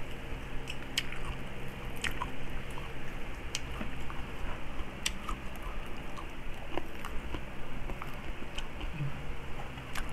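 Close-up eating sounds: chewing and biting of crispy pata (deep-fried pork leg) eaten by hand, with irregular small wet clicks and smacks. A faint low steady hum runs underneath.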